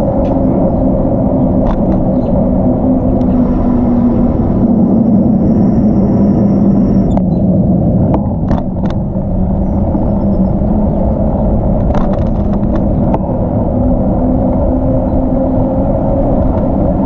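Steady rumble of bicycle tyres on a trail mixed with wind noise, with a few sharp knocks from bumps scattered through it.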